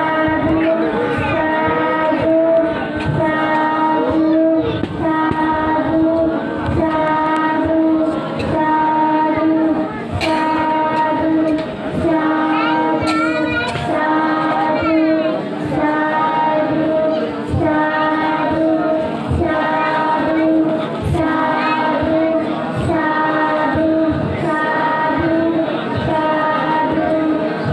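Singing over held, steady notes, loud throughout, with the voice changing note every second or two; music typical of a Buddhist ceremony.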